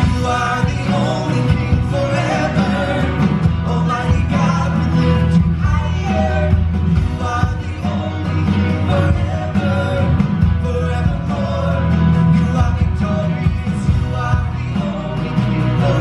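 A church worship band rehearsing live: singing over electric guitar, bass guitar and acoustic guitar, with a steady beat.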